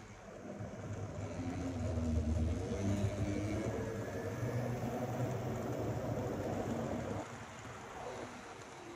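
N gauge model Class 66 diesel locomotive and its freight wagons running past on the layout's track, a steady motor-and-wheel running sound. It builds over the first couple of seconds and falls away about seven seconds in as the train passes.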